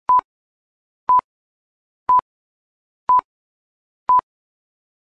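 Quiz countdown timer beeping: five short, identical electronic beeps at one steady pitch, one a second, counting down from five to one.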